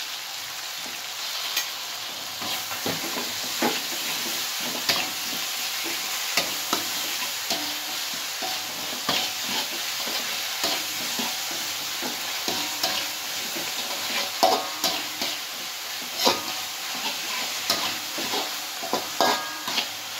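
Chopped spices and chillies sizzling in oil in an aluminium wok as a metal spatula stirs them. The spatula scrapes and clicks repeatedly against the pan, with the sharpest knocks in the second half.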